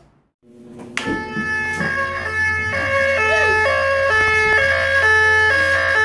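Red horn-strobe fire alarm sounder going off: a loud electronic alarm tone that starts sharply about a second in and switches back and forth between pitches, over a steady low hum.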